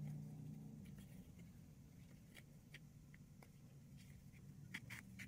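Near silence: faint scattered ticks and rustles of a metal yarn needle and yarn being drawn through crocheted stitches, sewing the stuffed piece closed.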